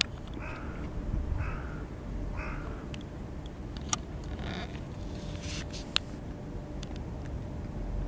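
A bird calling outdoors, the same call three times about a second apart, over a low steady rumble of wind or distant traffic; two sharp clicks follow, around the middle and about two seconds later.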